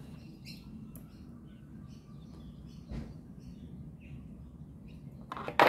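Hand-tool handling as needle-nose pliers bend a thin steel tension pick: a light click about three seconds in and a sharp clack near the end. Faint bird chirps sound in the background.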